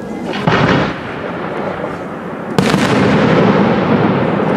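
Aerial firework shells going off: a short burst about half a second in, then a sharp bang a little after two and a half seconds, after which the sound stays up and hangs on.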